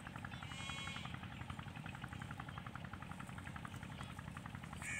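A motor running steadily with a rapid, even pulse. A short high-pitched call sounds about half a second in.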